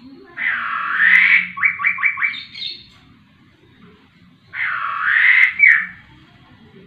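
Caged poksay rowo, a laughingthrush, giving two loud, harsh calls a few seconds apart. The first ends in a quick run of about five short notes.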